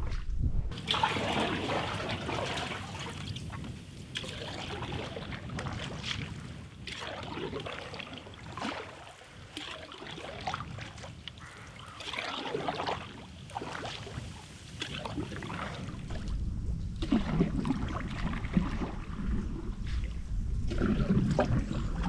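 Canoe paddle strokes in river water, with irregular splashing and trickling from the blade, and a low rumble building near the end.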